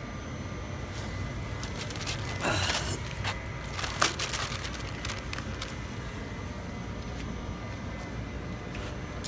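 Plastic carrier bag of fish crinkling as it is handled, in a burst about two and a half seconds in, with a sharp click about four seconds in, over a steady low background rumble.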